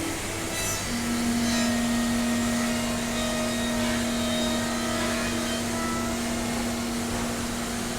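CNC milling machine cutting an acetate eyeglass front: a steady motor whine over a cutting hiss. The whine drops a little in pitch about a second in and then holds.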